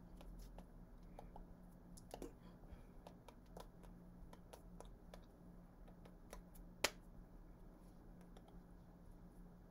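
Near-silent room tone with a faint steady low hum and scattered soft clicks and taps from hands striking and brushing together while signing, one sharper click about seven seconds in.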